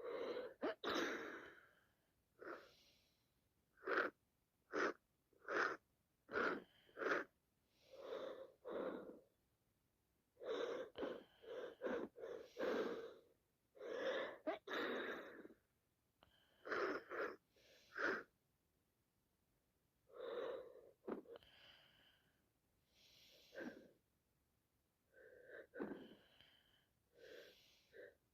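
A woman with a sinusitis-blocked nose sneezing and sniffing over and over, in a long run of short bursts with brief pauses between them.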